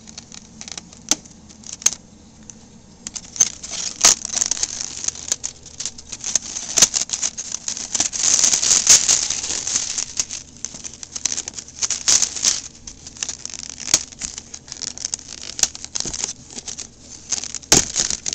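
Plastic wrapping rustling and crinkling as a new boxed airsoft shotgun is unpacked by hand, with scattered clicks and knocks of the box and its contents. The rustling comes and goes and is busiest about eight to ten seconds in.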